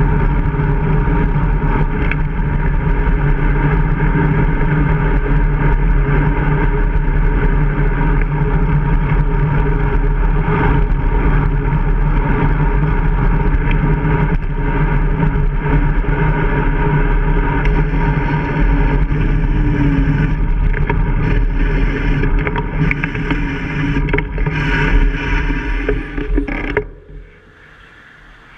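Steady rumble of wind and road noise on a bicycle-mounted action camera while riding, with a steady hum running under it. It drops away suddenly near the end as the noise eases.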